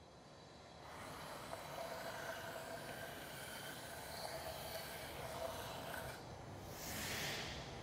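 Faint steady hissing noise with faint held tones, then a whoosh that swells and fades near the end.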